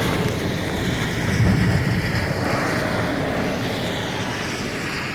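Strong gusty wind buffeting the microphone, a rough low rumble that swells about a second and a half in and then eases.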